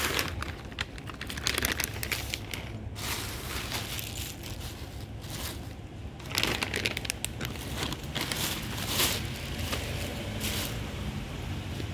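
Cats eating dry kibble off a wooden floor: a crackly crunching that comes in clusters of quick strokes.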